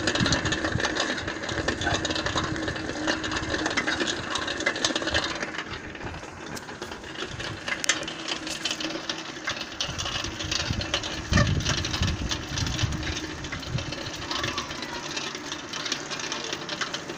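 Bicycle rattling and clicking as it is ridden along a paved road, a dense run of fine rattles over steady road rumble.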